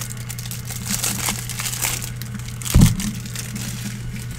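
Foil trading-card pack wrapper crinkling in gloved hands, then a single low thump a little under three seconds in.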